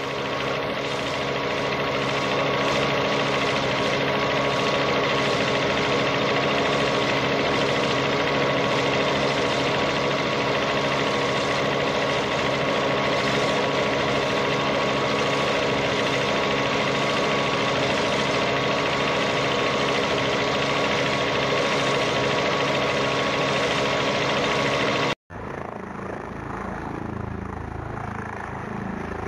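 Helicopter engine and rotor running steadily: a constant drone that fades in at the start. It cuts off suddenly about 25 seconds in, and a quieter engine sound takes over.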